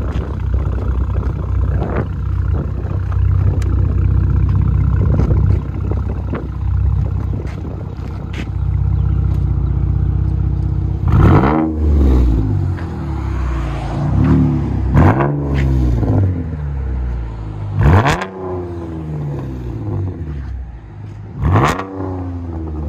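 2016 Chevy Camaro RS's 3.6-litre V6 through a true dual exhaust with Dynomax Race Bullet resonators and no X-pipe, idling steadily, then revved in about five quick throttle blips in the second half, each rising in pitch and falling back to idle.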